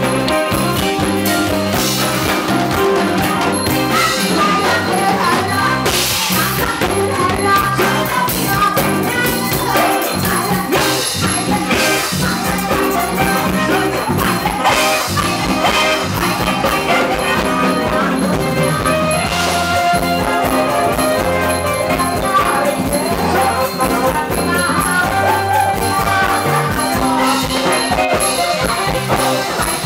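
Live band playing Thai ramwong dance music with singing.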